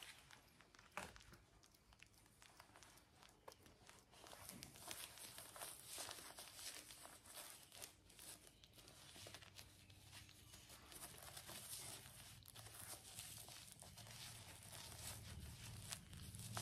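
Quiet handling noise: crinkling and rustling with many small scattered clicks, growing slowly louder towards the end.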